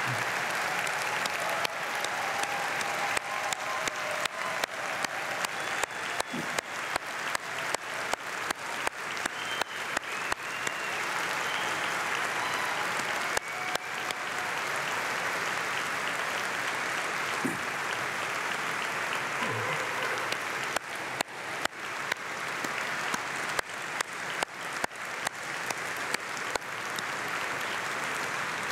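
Large convention audience applauding at length, the clapping falling into a steady unison beat for long stretches, twice.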